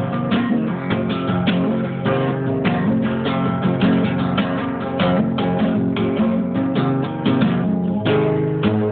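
Guitar playing, most likely acoustic: strummed chords and plucked notes in a quick, steady rhythm.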